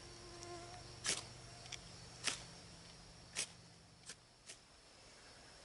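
Ferro rod struck with the back of an Air Force pilot survival knife, about six short scrapes at uneven intervals, roughly a second apart.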